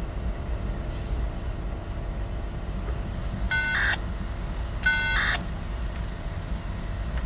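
Norfolk Southern diesel locomotive's horn sounding two short blasts about a second apart, each a chord of several tones, over a steady low rumble.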